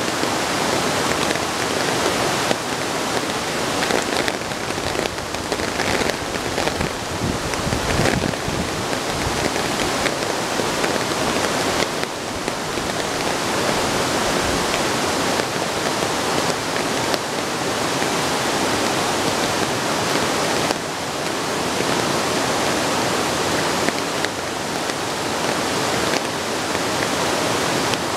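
Steady heavy rain falling, a dense even hiss of drops on surfaces, with brief low rumbles about eight seconds in and again around halfway.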